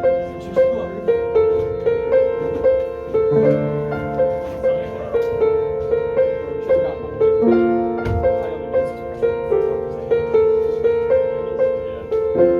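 Piano music: a repeated note struck in a steady rhythm, about two notes a second, over slowly changing chords.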